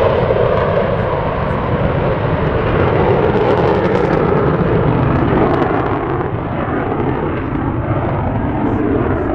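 F-16 fighter jet engine noise from the jet flying its demonstration, a loud continuous rush whose tone slowly shifts as the jet moves, easing slightly near the end.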